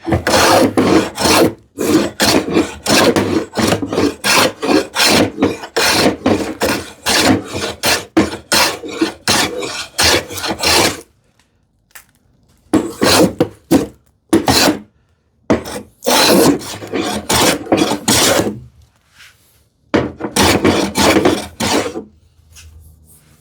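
Hand plane cutting across the edge of a wooden drawer front in quick, rasping strokes, taking it down to a marked line. A steady run of strokes is followed by a short pause, then three shorter runs.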